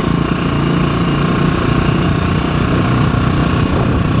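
Motorcycle engine running steadily as the bike is ridden.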